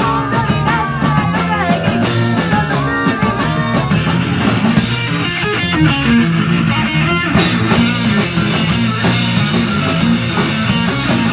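Rock band playing live: electric guitar, bass and drums.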